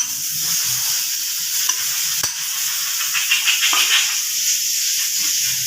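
A steady hiss that sets in suddenly, with a few faint light taps over it.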